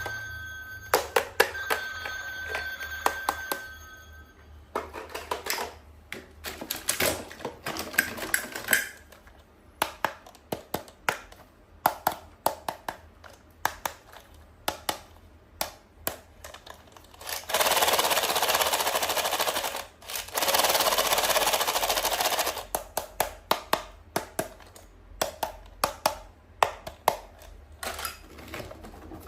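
Toys and packaging being handled: a long string of sharp clicks and taps on plastic. An electronic toy plays a ringing tone over the first few seconds. About two-thirds of the way through come two steady hissing stretches, each a couple of seconds long.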